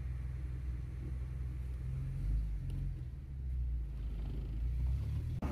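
Low, steady rumble of a motor vehicle's engine, shifting slightly in pitch a couple of seconds in.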